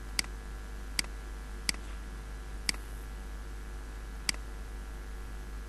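Computer mouse clicking five times at uneven intervals, ticking checkboxes, over a steady low background hum.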